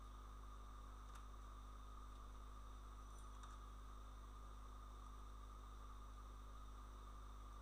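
Near silence: a steady electrical hum and hiss from the recording's noise floor, with a couple of faint clicks.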